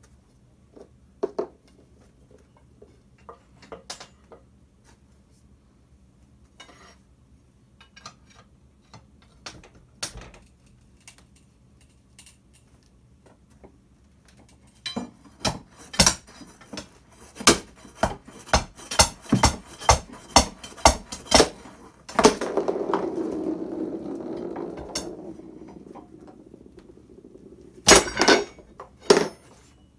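Hard golf balls clacking against each other and a wooden floor, with clinks of steel tire irons being handled: scattered single clicks at first, then a quick run of loud clacks about halfway through, followed by a few seconds of rolling rumble that fades out, and two more loud clacks near the end.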